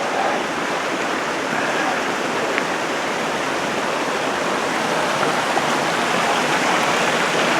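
Steady rush of the Gunnison River's water below the dam, growing slightly louder.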